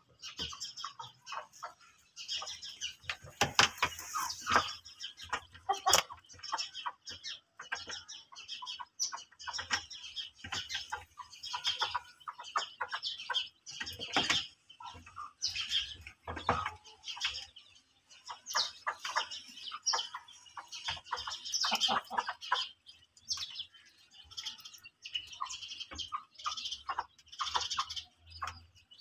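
Birds chirping busily in short, rapid calls, with occasional clucks from chickens among them.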